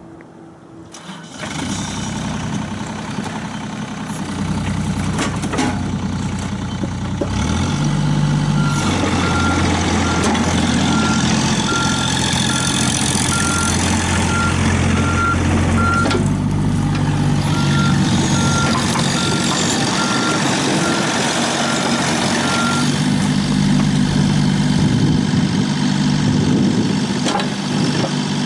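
2011 John Deere 27D mini excavator's three-cylinder diesel engine starting about a second in, then running, its speed rising and falling as the machine is worked. A high warning beeper sounds in an even series about twice a second through two long stretches in the middle.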